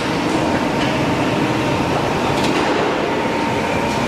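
Punch press with a roller feed running: a steady mechanical din with a faint held whine and a few light knocks.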